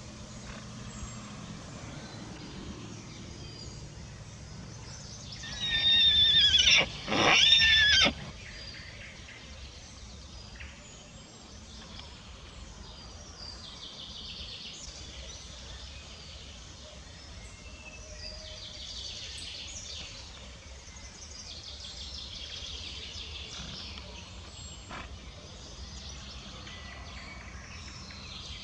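Pony stallion whinnying once, loud, about six seconds in: a wavering high call in two parts with a short break between. A stallion kept apart from his mare and newborn foal calls like this to them.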